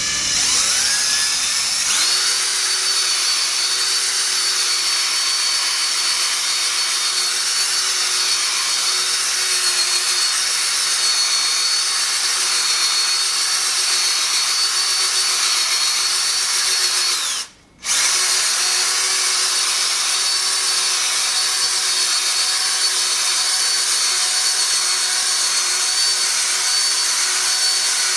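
18-volt cordless drill spinning a foam polishing pad against a glass-ceramic cooktop: the motor spins up at the start, then holds a steady whine over the hiss of the pad scrubbing the glass. It stops for about half a second partway through and starts again.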